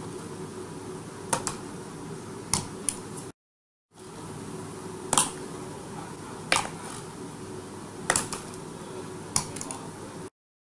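Wooden tumbling automaton, a ladder frame with two boxer figures turned over by mercury shifting inside its rails, flipping end over end down wooden steps, its rail ends knocking sharply on each step about every one and a half seconds. The sound cuts out briefly twice.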